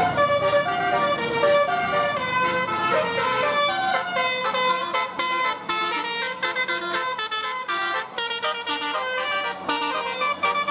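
Bus 'telolet' musical horn of the Basuri type playing a fast tune of short stepped notes, several pitches sounding together.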